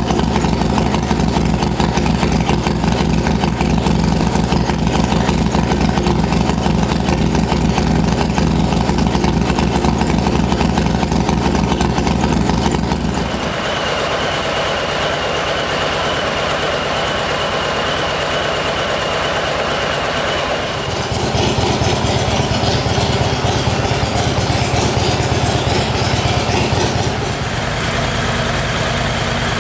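Harley-Davidson Low Rider ST's Milwaukee-Eight 117 V-twin idling through its exhaust, steady and loud. The tone changes abruptly a few times, heavy and low in the first part, thinner for a stretch past the middle, then low again.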